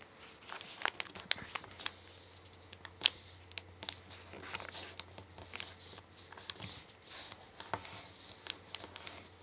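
A sheet of origami paper being folded by hand: scattered crisp rustles and small sharp crackles as the paper is lifted and the creases are pressed flat with the fingers, the loudest about three seconds in.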